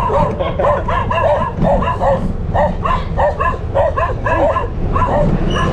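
A dog barking and yipping over and over in quick short high calls, about three a second, over a steady low rumble.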